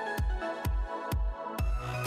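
Electronic dance background music with a steady kick drum about twice a second under held synth notes; a bass line and hi-hats come in near the end.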